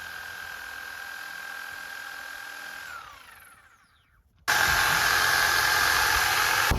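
Electric power tool running with a steady whine as it is tried on a round bale of hay, then winding down to a stop about three seconds in; after a short silence it starts suddenly and runs again, much louder, until it cuts off near the end.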